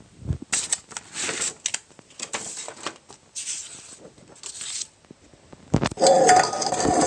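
A sheet of paper rustling and sliding in several short bursts as it is handled and folded. About six seconds in comes a louder sound with a steady pitched ring in it.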